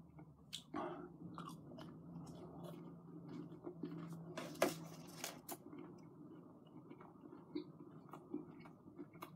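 A person quietly chewing crunchy chicken nuggets: scattered soft crunches and mouth clicks, with a louder crunch about four and a half seconds in, over a faint steady low hum.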